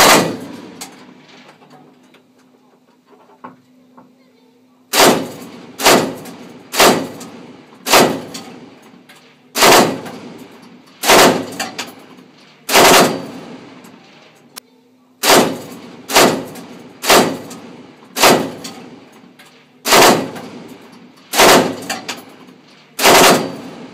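A tank's coaxial machine gun firing: one report at the start, then after a pause of about five seconds a long string of about fourteen more, roughly one a second, each trailing off in a fading echo.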